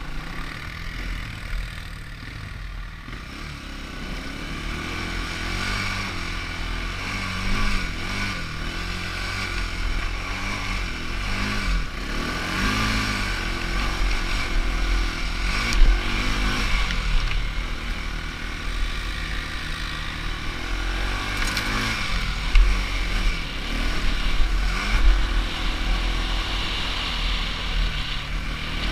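ATV engine running along a trail, its pitch rising and falling again and again with the throttle over a steady low rumble. A few sharp knocks stand out in the second half.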